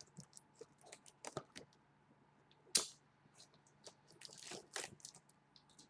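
A sealed trading card box and its plastic wrap being handled and torn open: scattered crinkles and clicks, with one sharp snap about three seconds in.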